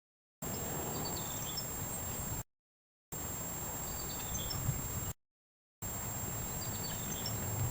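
Outdoor background hiss with faint bird chirps, cut to dead silence for about half a second roughly every two and a half seconds. There is a soft low knock a little past halfway and another near the end.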